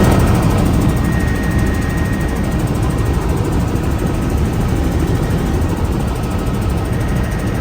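Helicopter in flight: steady, loud engine and rotor noise with a faint high steady whine above it.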